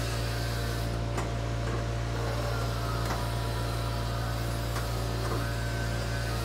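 Steady electrical hum from a pedestal spot welder, with a few light metallic clicks a second or two apart as sheet metal is handled between its electrodes.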